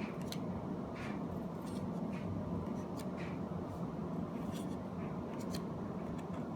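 Pokémon trading cards being handled: short crisp flicks and slides of card stock, one or two a second, over a steady low room hum.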